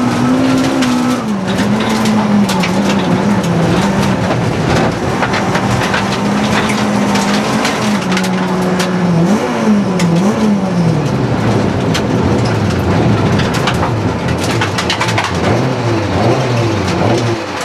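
Rally car engine heard from inside the cabin, held at high revs on a gravel stage while stones rattle and ping against the car. The revs dip twice briefly around the middle, then drop well down for the last few seconds as the car slows toward the stop control.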